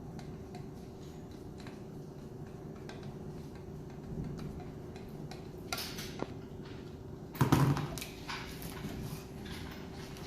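Parts of a stand fan being handled and fitted during assembly: scattered light clicks and taps, then a louder clatter about seven and a half seconds in, over a steady faint hum.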